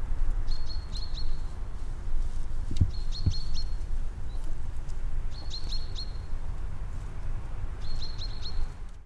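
A bird singing a short, high phrase (a held note followed by a few quick downward notes), four times about two and a half seconds apart, over a steady low rumble.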